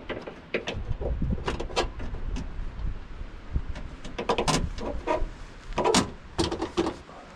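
Scattered clicks, knocks and rustles from hands handling the tailgate's trim and wiring, busier in the second half. A low rumble runs through the first few seconds.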